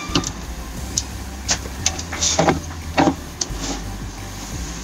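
Scattered clicks and knocks from handling test gear on a workbench, the loudest about two and a half and three seconds in, over a steady low hum.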